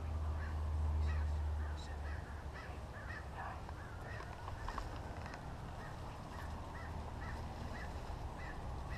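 Birds calling over and over in short, quick calls, several a second. A low rumble is heard in the first two seconds.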